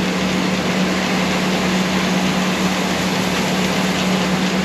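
Grinder-mixer running off a tractor, augering grain into its tank with the grinding system bypassed: a steady mechanical hum with a low, regular throb underneath.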